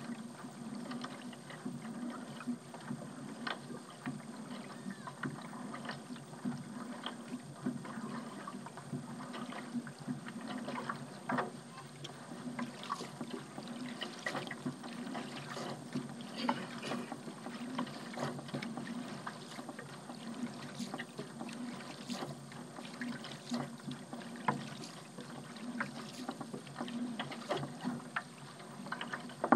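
A paddle dipping and pulling through water, with many small irregular splashes and drips.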